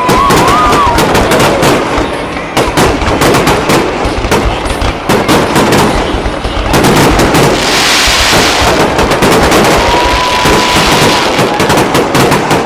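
Aerial fireworks going off in a rapid, continuous barrage of overlapping bangs and crackles, with a spell of hissing about eight seconds in.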